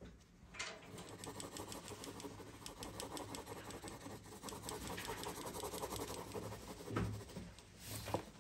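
Pencil lead scratching on drawing paper in a run of quick hatching strokes, several a second, shading a shadow area of a sketch. A soft thump near the end.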